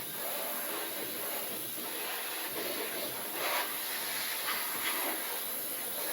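Air blower blowing dust out of a desktop computer: a steady hiss of rushing air that swells briefly now and then.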